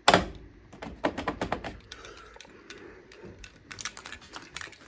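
A quick, irregular series of sharp clicks and light taps, with one loud click at the start, a run of them about a second in and another run near the end.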